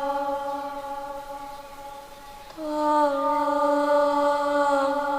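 A woman's eerie, drawn-out wailing cry of 'tolong' ('help' in Indonesian), held on one long, slowly falling note that fades away. A second long call begins about two and a half seconds in. It is a horror sound effect of a ghost calling for help.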